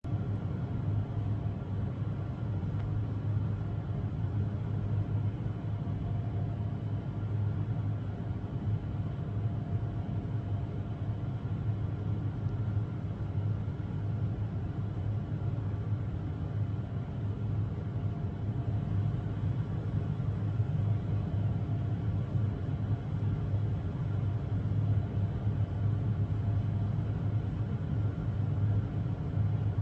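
Steady low background rumble with a faint hum above it, unchanging throughout, with no distinct events.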